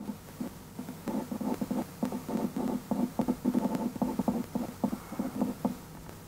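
Pen on paper: a fast run of short inking strokes, several a second, starting about a second in and dying away shortly before the end, as the spiky hair is hatched in.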